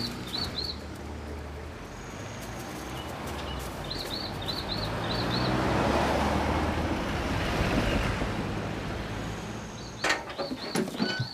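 Vehicles passing along a road, one swelling loud around the middle and fading, its engine and tyre noise clear. Over it a bird repeats a short run of chirps three times, and a few sharp knocks come near the end.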